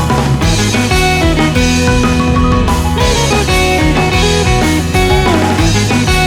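Background music: a guitar-led rock track with bass and drums.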